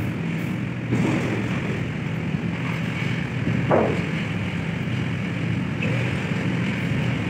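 Steady low drone of heavy machinery during container unloading at the ship's side, with a small knock about a second in and a brief falling tone a little past halfway.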